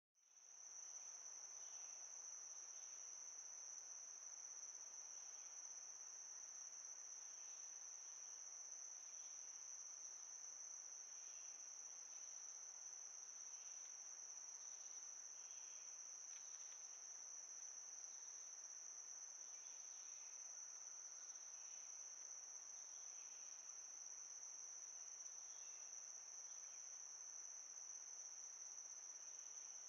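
Faint, steady high-pitched insect chorus, cricket-like, with faint scattered chirps beneath it.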